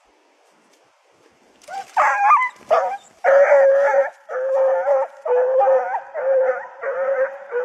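A hunting hound baying as it chases a hare: after a quiet second and a half, a run of loud, drawn-out bays, about one a second.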